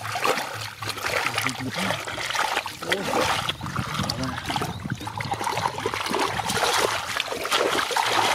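Continual small splashes and sloshing of shallow muddy water as people wade and grope through a flooded mud hole by hand.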